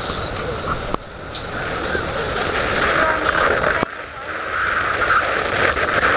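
Steady rush of a moving yakatabune pleasure boat: wind on the microphone and water running past the hull, with the boat's engine underneath. The noise drops abruptly about a second in and again just before four seconds, then builds back up.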